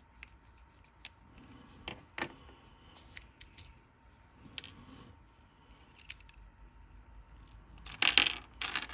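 Scattered small clicks and taps of hard plastic action-figure parts being handled as the figure is taken apart, with a louder clatter of parts about eight seconds in.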